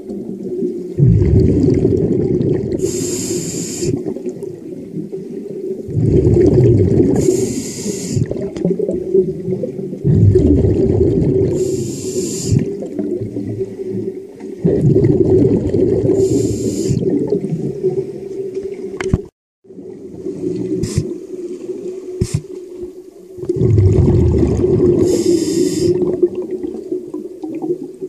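Scuba diver breathing through a regulator underwater. Every four or five seconds comes a short hissing inhale, followed by a longer burbling rumble of exhaled bubbles. The sound cuts out briefly about two-thirds of the way through.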